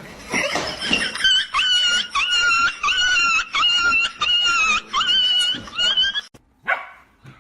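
A small dog giving a rapid run of high-pitched yips, about a dozen at roughly two a second, that stops abruptly near the end.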